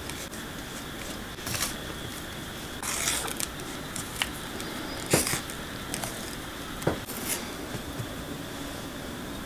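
Chopsticks tapping and scraping against a stainless steel tray while turning soft pieces of warabi mochi in kinako: about eight short, irregularly spaced clicks and scrapes over a steady background hiss.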